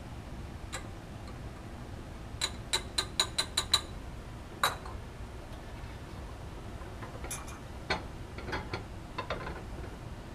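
Glass clicks and clinks from a separatory funnel and its stopper being handled. A quick run of about seven sharp clicks comes about two and a half seconds in, then a single clink about a second later, then a scattered cluster of lighter clicks over the last three seconds.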